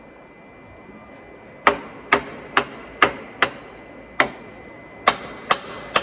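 A hand hammer strikes steel at the truck's anti-roll bar mounting during an anti-roll bar bush change. There are about nine sharp blows, each with a short metallic ring, starting nearly two seconds in and coming in quick, uneven succession.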